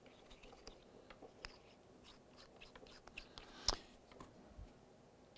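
Faint clicks and light rattles of small metal tool bits being handled as a multi-tool's knurled handle is opened to take out a bit, with one sharper click a little before four seconds in.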